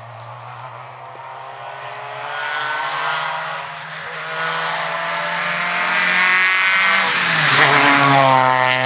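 Rally car's engine at full throttle, approaching and growing steadily louder. Its pitch drops once about seven seconds in, and it is loudest as the car passes close by near the end.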